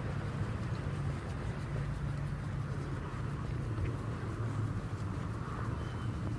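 Steady low rumble of a vehicle engine running, with an even background hiss.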